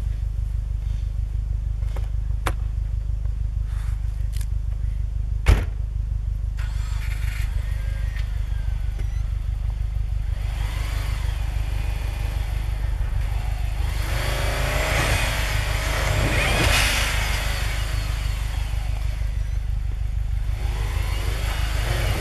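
Turbocharged flat-four of a 2005 Subaru Forester XT running steadily with a low rumble, with a sharp knock about five seconds in. From about ten seconds on it revs up and down repeatedly as the car tries to drive out of deep snow in a ditch, its wheels spinning.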